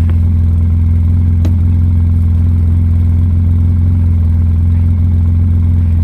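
Engine idling steadily with a low, even hum, likely the tow vehicle waiting with the rope slack. Two sharp clicks, one right at the start and one about a second and a half in.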